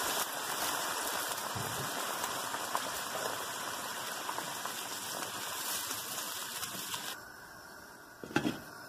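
Hot water sizzling and bubbling in a hot frying pan of stir-fried vegetables, a steady crackling hiss. The hiss drops away about seven seconds in, and a short knock follows near the end.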